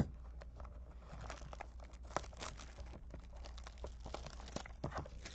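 Plastic wrapping on a trading-card pack crinkling and tearing as it is cut open with a knife: a steady string of small, irregular crackles.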